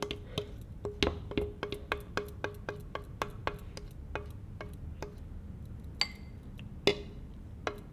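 A spoon knocking against a cup while scooping batter into it: a quick run of short taps, each with a brief ring, about four a second at first and slowing later. Two louder, brighter clinks come near the end.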